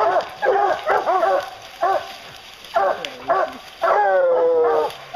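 A pack of bear hounds bawling and barking at the base of a tree with a black bear treed above them, short rapid barks overlapping from several dogs, with one long drawn-out bawl about four seconds in.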